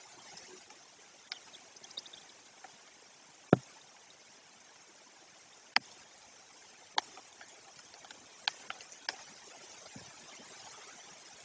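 Steady rain falling in a pine forest, a soft even hiss, with a scattering of sharp taps from large drops landing close by; the loudest tap comes about three and a half seconds in.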